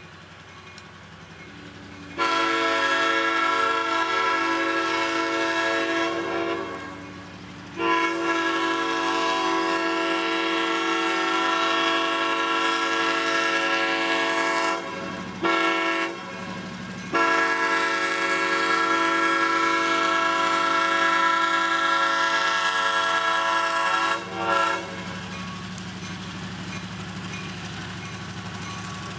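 Nathan M5 five-chime air horn on an EMD SW1200 diesel switcher sounding the grade-crossing signal: two long blasts, a short one, then a long one ending in a brief toot. The locomotive's diesel engine runs underneath and grows louder near the end as it approaches.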